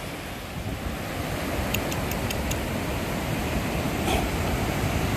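Ocean surf washing in over the shallows, a steady rushing hiss that swells slightly about a second in, with a low rumble underneath. A few faint ticks about two seconds in.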